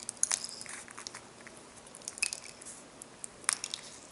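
Scissors snipping through plastic drinking straws: a handful of short, crisp cuts a second or more apart.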